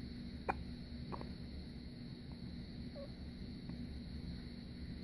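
Newborn baby hiccuping: a short sharp hiccup about half a second in and a fainter one just after a second.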